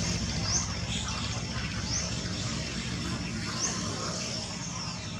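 Steady low background rumble and hiss with a short, high, rising chirp that repeats about every second and a half.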